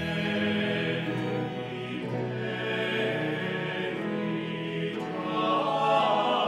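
Background choral music: a vocal ensemble singing slow, sustained chords.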